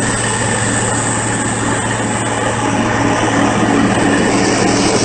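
Heavy diesel machinery engine running steadily, a loud constant drone with a steady low hum.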